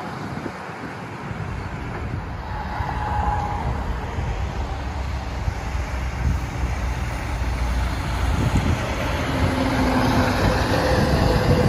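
Diesel semi-truck pulling a loaded flatbed trailer comes past close by over steady road traffic. Its engine rumble builds and is loudest near the end.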